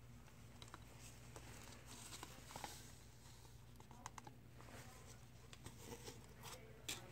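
Near silence with a faint low hum, broken by scattered light taps and a soft patter: a powdered gunpowder-and-titanium mixture being poured from a plastic cup through a plastic funnel.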